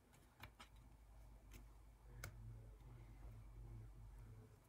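Near silence: low room hum with a few faint clicks and taps as die-cut paper flower pieces are picked up and handled on a tabletop.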